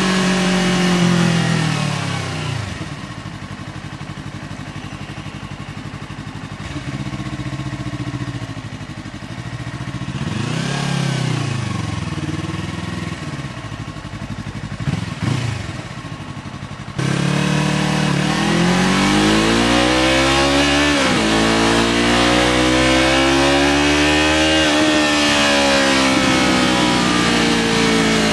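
Yamaha R3's parallel-twin engine through an SC Project aftermarket exhaust, on the move. The revs fall away at first, and the engine runs low and quieter for a long stretch with a few short blips. About two-thirds of the way through it suddenly gets loud and the revs climb through the gears, with one dip at an upshift, then fall off near the end.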